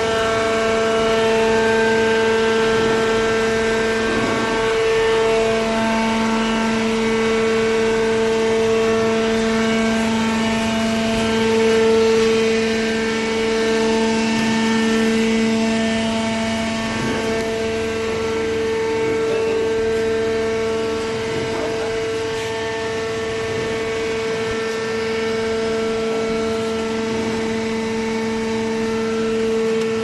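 Electric motor and hydraulic pump of a small hydraulic cardboard baler running: a steady, pitched hum with fainter higher tones that fade in and out.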